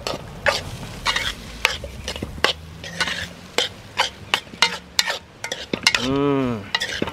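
Fried rice frying in a hot Dutch pot while a spoon stirs it: a steady sizzle with frequent sharp scrapes and clicks of the spoon against the pot.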